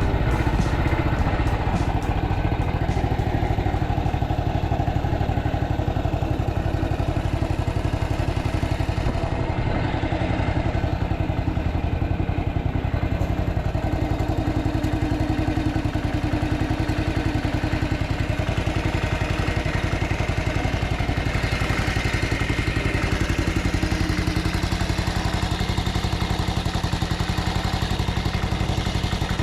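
BSA Starfire motorcycle with a swapped-in B44 441 cc single-cylinder four-stroke engine, running steadily with an even beat.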